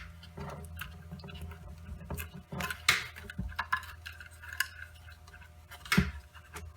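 Scattered small clicks and rattles of hands working an electrical wire and its cable clamp in a circulator pump's wiring box, over a steady low hum.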